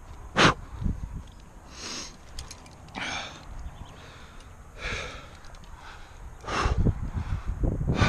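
A rock climber's hard breathing close to a chest-mounted microphone, with sharp exhalations about every second and a half and a few light clicks around the middle. A low rumble on the microphone comes in near the end.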